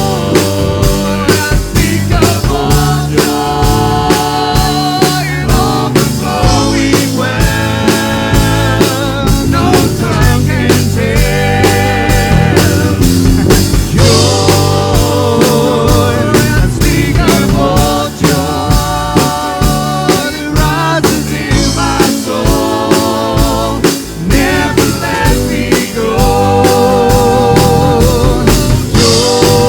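Church worship band playing a song with drum kit, guitar and bass under a steady beat, and voices singing long, wavering held notes.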